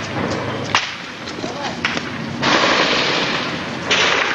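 Scattered gunshots in combat: a few sharp cracks in the first two seconds, over a loud rushing noise that swells about halfway through.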